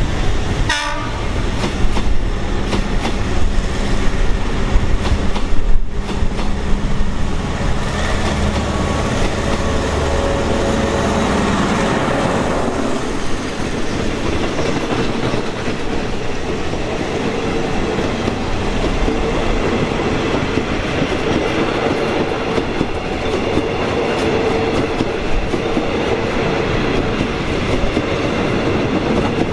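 Passenger train passing close by: a continuous rumble with the clickety-clack of the coaches' wheels over the rail joints.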